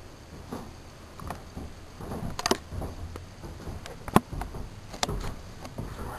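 A few sharp clicks and knocks over a low rumble, with a cluster about two and a half seconds in and the loudest knock about four seconds in.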